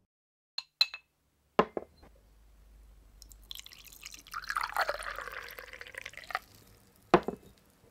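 Tea poured into a cup. A couple of small crockery clicks and a knock come first. The pour runs for about three seconds, and a cup is set down with a knock near the end.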